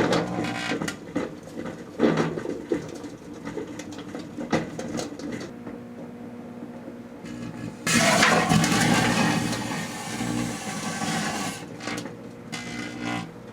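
Microwave oven running with a steady hum while small fountain fireworks burn inside it, hissing and crackling with sharp pops. About eight seconds in, one flares up into a loud spraying hiss that dies down over a few seconds.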